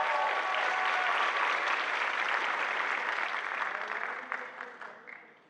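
Audience applauding in a hall, with a few cheers at first, then fading away over the last couple of seconds.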